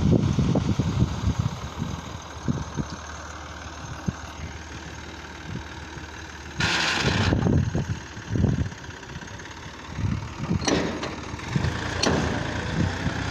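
Massey Ferguson 240 tractor's three-cylinder diesel running at idle while it powers the hydraulic tipper of a trolley dumping a load of soil. There are irregular low thumps in the first second or so, and a short loud hiss about seven seconds in.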